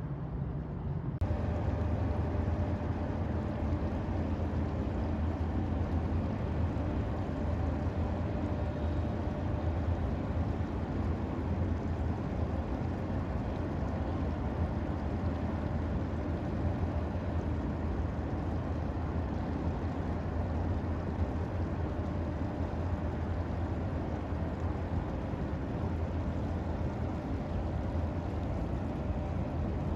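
Boat engine running steadily: a low, even rumble with a faint steady hum above it.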